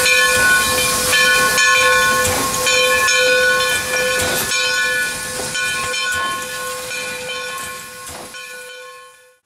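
Black River and Western 2-8-0 Consolidation steam locomotive No. 60 moving slowly, hissing steam with a steady whistling tone that pulses about once a second. The sound fades out near the end.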